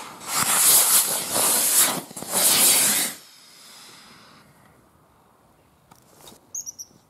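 Black-powder firework rocket motor on a model airplane burning with a loud hiss in three surges for about three seconds, then dying away. The model does not take off.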